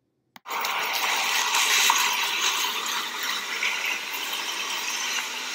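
Near silence, then about half a second in a steady rushing hiss of outdoor noise starts abruptly and runs on at a fairly high level.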